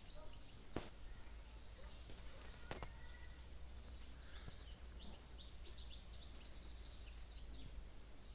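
Small birds chirping over faint outdoor background noise, with the calls busiest about five to seven seconds in. Two sharp clicks sound about one and three seconds in.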